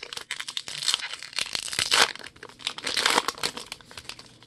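Crinkling and crackling of a 2020 Topps Archives baseball card pack wrapper being handled and crumpled: a dense run of rapid crackles, loudest about two seconds in and again around three seconds.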